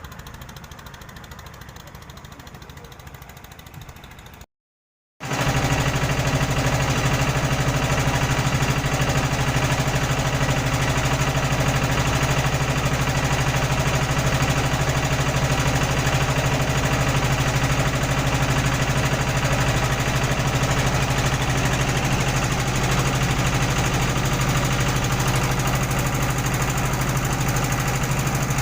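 A quieter stretch, then a brief break to silence about four seconds in, after which an engine runs loud and steady at an even speed.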